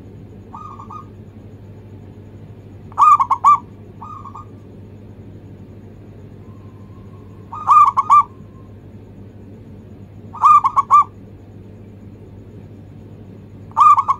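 Zebra dove (perkutut) cooing its song: short phrases of a few quick, fluttering notes, repeated about every three seconds, with a shorter tail note after some phrases.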